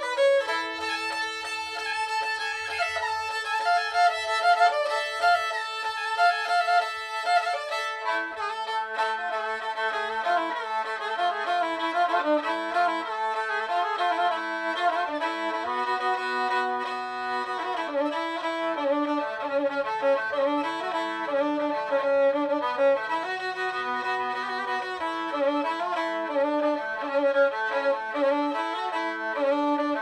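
Cappadocian kemane, an upright bowed fiddle with sympathetic strings, playing a folk melody over a held drone note. Lower notes join about eight seconds in.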